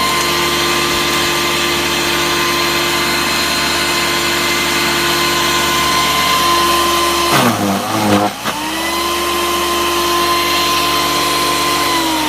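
Small wood chipper's motor running at a steady high whine; a little past seven seconds in it bogs down hard with a rough grinding as a carp goes through the blades, then spins back up to speed.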